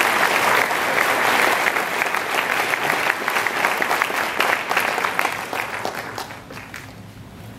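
Audience applauding, the clapping thinning out and dying away about six to seven seconds in.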